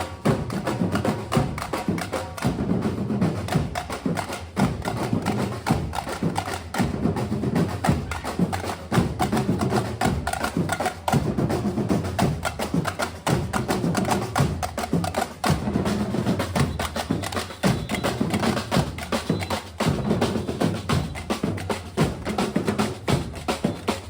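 Batucada samba percussion ensemble playing a fast, driving rhythm: massed drums with a steady low pulse and sharp, rapid strokes on top.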